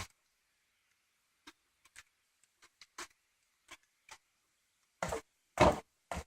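Scattered faint irregular ticks, like raindrops dripping, then a quick run of louder dull thuds starting about five seconds in.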